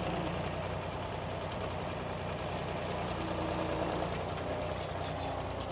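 David Brown 880 tractor engine running steadily while pulling a two-furrow plough.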